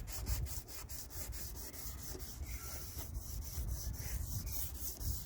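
Sandpaper being rubbed by hand over a plastic headlight lens in quick back-and-forth strokes, several a second, scouring off the yellowed, oxidised surface.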